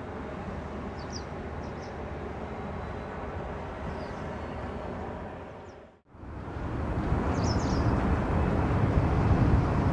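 Boeing 747-400 freighter's four jet engines running on the ground, a steady rumble. The sound drops out briefly about six seconds in, then comes back louder and gradually rising.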